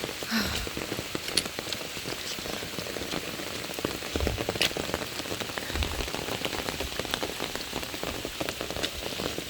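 Steady rain falling, with many close drops ticking sharply. A couple of brief low thumps come about four and six seconds in.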